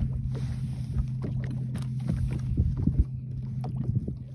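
Steady low hum in a fishing boat, with scattered knocks and clicks of gear and hands on the boat.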